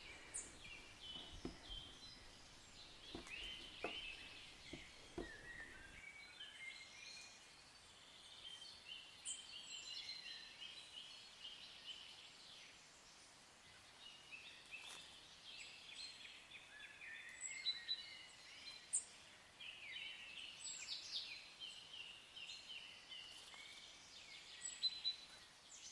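Faint birdsong of quick high chirps and short trills. In the first few seconds it is joined by a few soft knocks of a wooden rolling pin on a wooden board as dough is rolled out.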